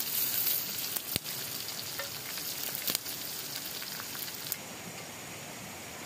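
Oil sizzling as meat fries in a cast-iron wok over a wood fire, with the occasional clink of a metal spoon turning the pieces. About four and a half seconds in the frying gives way to a steadier hiss.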